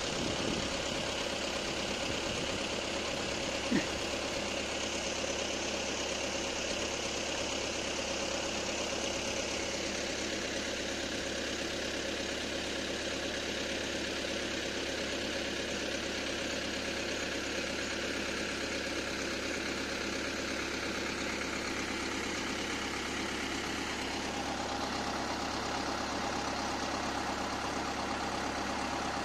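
Mahindra 585 DI tractor's diesel engine running at a steady speed, driving a spray pump. A single short knock about four seconds in.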